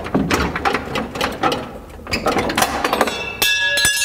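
Jeep Wrangler JL factory rear bumper being pulled off the frame: a run of knocks, rattles and scraping of plastic and metal, then a metallic clank that rings on near the end.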